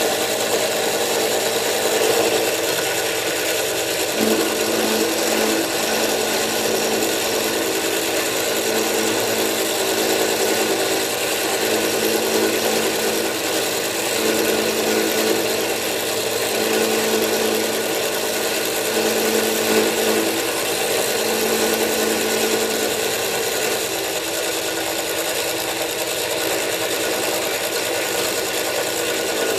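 Milling machine running steadily with its end mill cutting the lock relief into a metal knife frame lock, a continuous machining sound with a steady motor tone.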